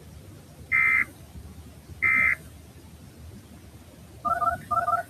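Emergency Alert System end-of-message data bursts: two short, harsh two-tone digital screeches about 1.3 s apart, the closing bursts of the three-burst sequence that marks the end of an alert, over a low radio hum and hiss. Near the end come two quick electronic chirps about half a second apart.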